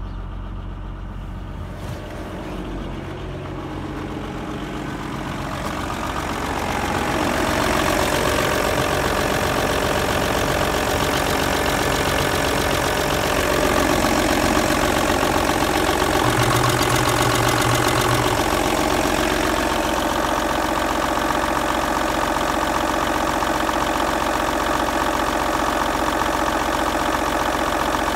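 Audi 2.5 TDI V6 diesel engine (AKN) idling steadily, about 900 rpm. It is heard muffled from inside the cabin at first, then grows louder and clearer over a couple of seconds at the open engine bay.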